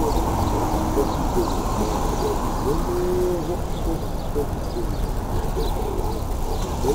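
Wind rushing over the microphone and road noise from a moving bicycle, with a string of short, low hooting tones that rise and fall throughout.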